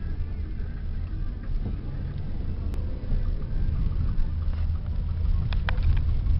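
Loud, steady low rumbling noise with a fluctuating level, and a couple of faint clicks about five and a half seconds in.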